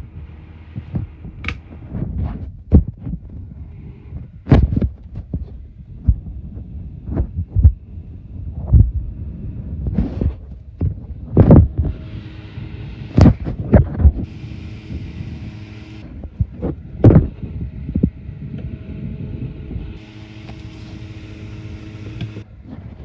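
Comfort Zone box fan running with a steady motor hum, broken by loud, irregular thumps and knocks about once or twice a second.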